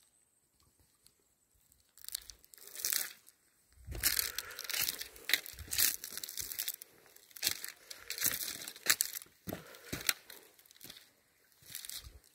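Footsteps crunching through dry leaf litter on a stony path, a run of irregular rustling crunches that starts about two seconds in and gets louder from about four seconds in.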